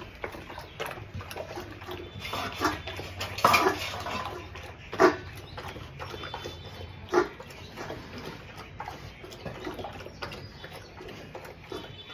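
Labrador eating dry kibble from a stainless steel bowl: irregular crunching, with clinks of kibble and snout against the metal bowl, over a steady low hum.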